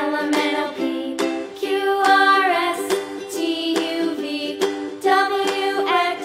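Background children's music with plucked strings, ukulele-like, under a bending melody line.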